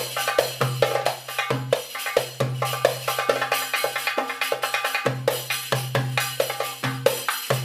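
Background music led by percussion: a steady, busy beat of drum and wood-block-like hits over a repeating low note.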